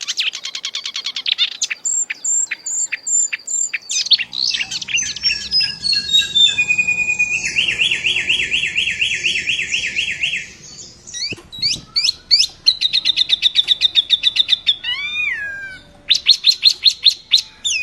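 Songbird singing a long, varied string of phrases: rapid repeated chips, a fast buzzy trill, descending note runs and slurred rising-and-falling whistles.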